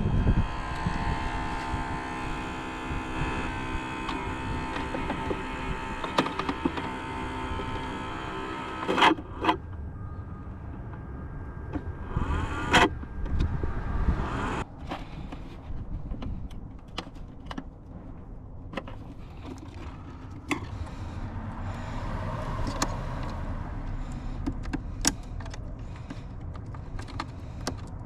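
A small electric motor hums steadily with several steady tones for about the first nine seconds. Then come sharp clicks and scattered knocks of handling.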